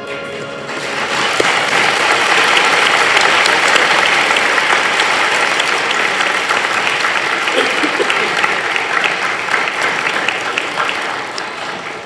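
Audience clapping and applauding, swelling up about a second in and tapering off near the end.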